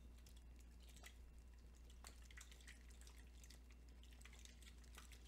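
Very faint sloshing of juice inside an open aluminium drink can swirled by hand, with a few soft scattered clicks.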